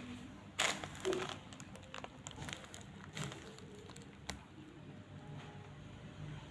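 Packaging being handled and crinkled during an unboxing: irregular rustles and sharp clicks, loudest from about half a second to just past one second in, with smaller bursts later.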